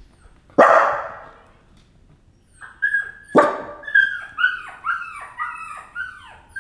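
Recorded dog cries played through a laptop speaker: a loud bark about half a second in, a sharp yelp a little past three seconds, then a run of short falling whines about two a second.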